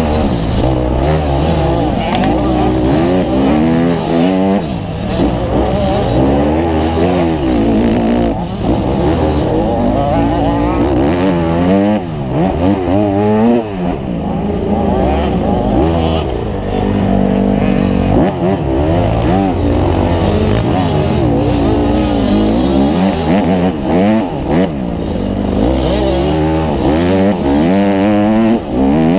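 Motocross bike engine ridden hard, its pitch rising and falling again and again with throttle and gear changes, heard close from the bike's own mounted camera.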